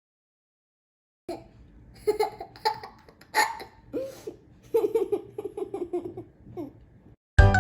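Young child laughing and giggling in short, repeated bursts after a second of silence. A music jingle starts near the end.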